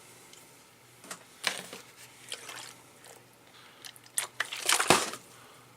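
Scattered clicks, short scrapes and rustles of a multitool and a small axe being handled, with a cluster of sharp knocks near the end as the tools are set in place for sharpening.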